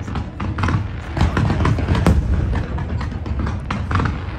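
Fireworks display: a dense, irregular volley of bangs and pops from bursting shells and comets over a continuous low rumble, with one sharp, loud bang about two seconds in.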